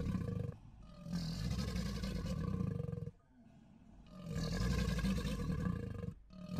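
Crocodile growling: deep, rough calls in long stretches, breaking off briefly about a second in, again around three seconds in, and once more near the end.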